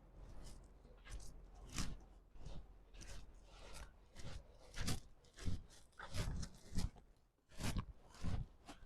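Footsteps crunching on frozen snow, an uneven series of short crunches at a walking pace, about one or two a second.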